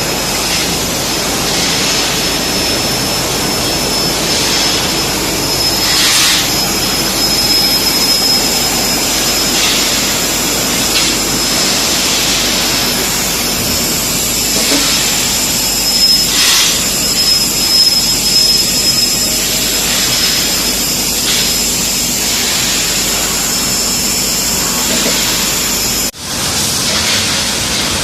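Automatic pipe and profile painting machine running: a steady loud hiss with a thin high whine, with louder surges of hiss every few seconds.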